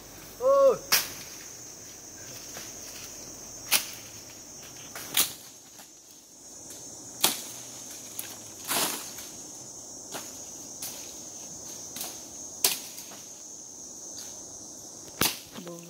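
Sharp woody cracks at irregular intervals, about a dozen in all, as overgrown forest undergrowth is cut back, over a steady high-pitched drone of insects. A short voiced call near the start is the loudest sound.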